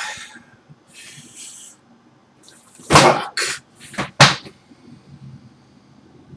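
A man's heavy breathing close to the microphone, his hands cupped over his mouth: a soft sigh about a second in, then four loud, short puffs of breath in the middle.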